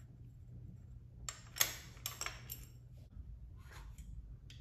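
Light metallic clinks and clicks of a hand tool against metal parts of a bicycle engine kit being fitted: a quick run of several a little over a second in, then a fainter one near the end, over a low steady hum.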